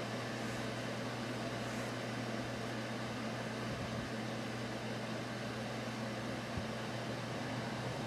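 Steady low hum with an even hiss underneath, unchanging throughout: background room tone.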